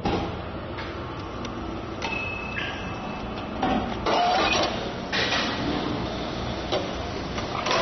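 Hot-noodle vending machine humming as it finishes cooking, with a steady beep about two seconds in. From about three and a half seconds in, the delivery hatch clatters and bumps as it is opened and the paper bowl of tempura soba is handled.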